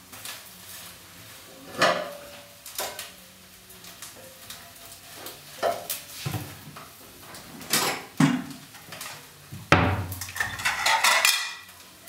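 Spatula knocking and scraping in a non-stick frying pan on a gas burner: a string of separate clinks and knocks a second or two apart, with a quicker flurry of clinks near the end.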